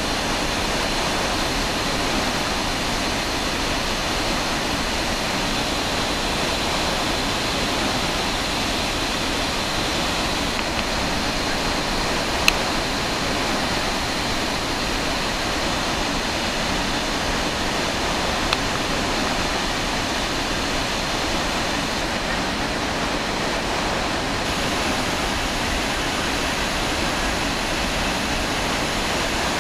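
Iguazu Falls: a steady, dense rush of huge volumes of water plunging over the cliffs and churning in the river below. Two brief sharp clicks come through it, about twelve and eighteen seconds in.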